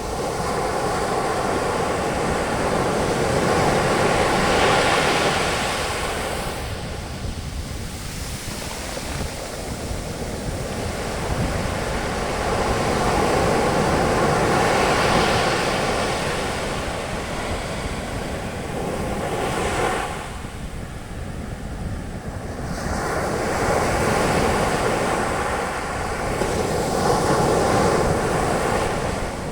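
Sea waves breaking on a beach, their foam rushing up the sand and draining back, swelling and fading in long surges about every ten seconds.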